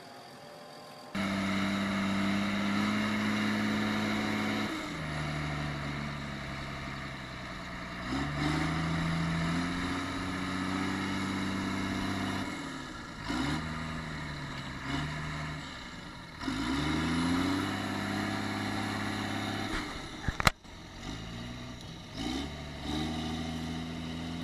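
Tractor engine heard from inside the cab, starting suddenly about a second in, running and repeatedly revving up and dropping back in pitch as it works under load. One sharp click about twenty seconds in.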